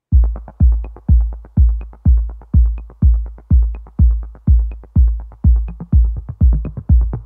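Electronic music with a heavy kick drum on every beat, about two a second, and faint high ticks between the beats.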